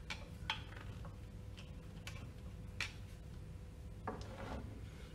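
Scattered light metallic clicks and taps as tools and small parts are handled at a pump's coupling and seal housing, with a duller knock about four seconds in.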